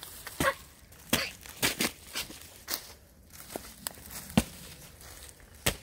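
Footsteps crunching through dry pine needles and fallen twigs on a woodland floor, with irregular sharp snaps of sticks breaking underfoot, about one every half second; the loudest snaps come near the end.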